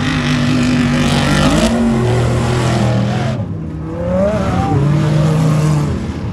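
Engines of off-road race trucks running hard as they race past on a dirt track, the pitch holding and then stepping to a new level several times.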